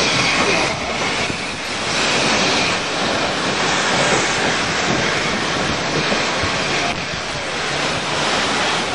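A train on the move: the steady noise of wheels running on the rails.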